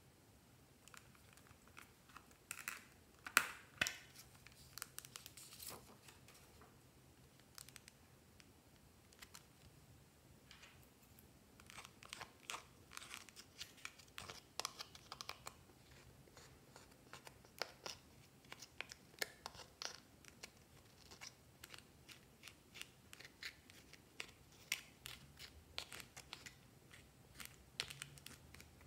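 Small scissors' tips scratching and breaking up pressed eyeshadow in a makeup palette: faint, scattered scrapes, crunches and clicks, with a louder cluster of clicks about three seconds in.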